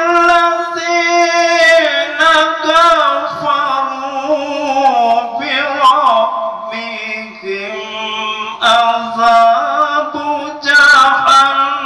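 A single voice chanting melodically in long, drawn-out notes with wavering ornaments and slow downward glides, in the style of Qur'anic recitation; fresh phrases begin about two-thirds of the way through and again near the end.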